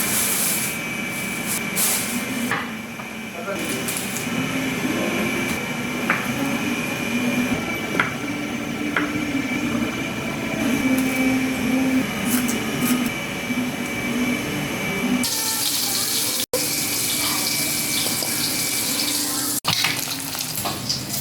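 Tap water running into a kitchen sink during washing up, with a few light clicks. The sound drops out abruptly twice near the end.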